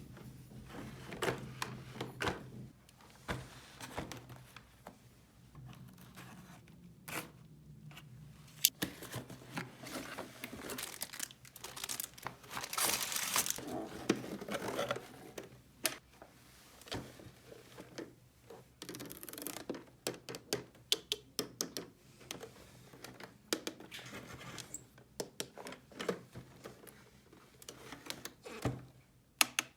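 Toy packaging being opened by hand: packaging tearing and crinkling, with scattered small clicks and taps, and one longer tearing stretch about halfway through.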